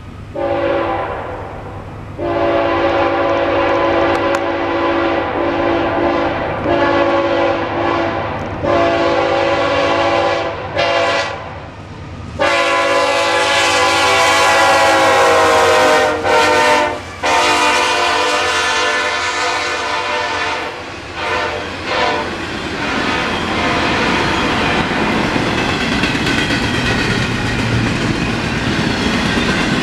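CSX freight locomotive's air horn sounding a chord of several notes in a series of long blasts with short breaks, the warning for a road crossing as the train approaches. About twenty-two seconds in the horn stops and the rumble of the passing double-stack container train takes over, its wheels clacking over the rail joints.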